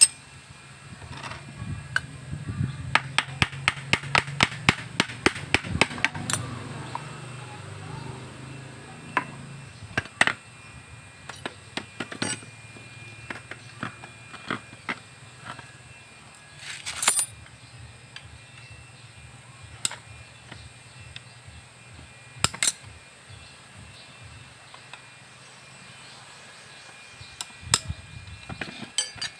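Hand tools clicking and clinking against the metal parts of a car alternator being taken apart, with a quick run of clicks about five a second early on, then scattered single clicks and knocks.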